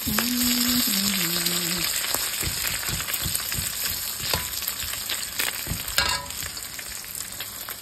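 Bacon, a sausage patty and a hash brown sizzling in hot fat in a steel pan, with a metal spatula scraping and tapping against the pan; a sharper metal clink about six seconds in.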